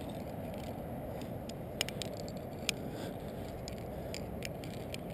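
Metal climbing gear clicking and clinking as a carabiner and quickdraw are handled and clipped, a scatter of sharp clicks with the two loudest about two and three seconds in. Under it runs a steady low rush of wind on the microphone.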